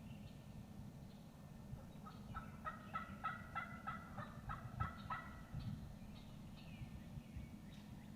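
Male wild turkey gobbling: one rattling gobble of about ten quick notes, starting about two seconds in.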